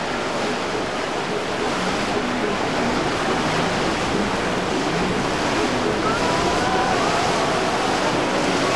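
A 2016 MasterCraft NXT wake boat running at speed through choppy inlet water: a steady rush of spray and wake that grows slightly louder as it passes. Faint wavering higher sounds about six seconds in.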